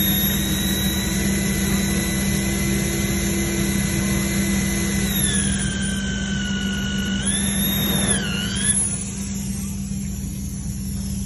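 Corded electric drill driving a PIAS self-drilling screw into a steel I-beam: a steady motor whine that drops in pitch about five seconds in, rises and dips again, then stops a little before the end. A steady low hum runs underneath throughout.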